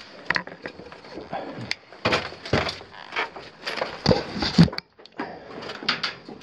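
Irregular knocks, scrapes and rustling of a climber getting off a rope in a mine shaft, with gear, boots and the camera bumping against rock and timber.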